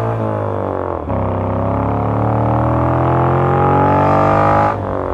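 Pembleton T24's 850cc air-cooled Moto Guzzi V-twin accelerating hard. The revs fall through a gear change about a second in, then climb steadily in pitch before dropping away sharply near the end.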